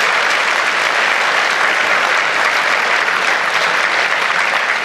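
Theatre audience applauding steadily: a dense, even clapping from a full hall.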